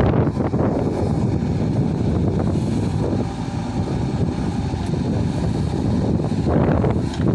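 JCB backhoe loader's diesel engine running steadily under work, with wind buffeting the microphone.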